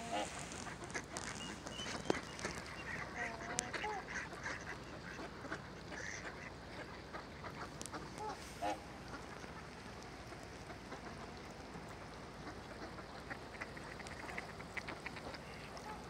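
Mallards calling from a flock on the water: a few short quacking calls in the first nine seconds and scattered soft chatter, over a steady background hiss.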